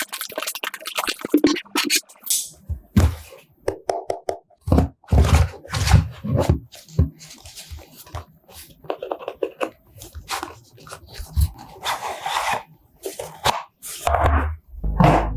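Hands handling and opening product packaging: irregular clicks, taps and short scrapes with gaps between them. Music comes in near the end.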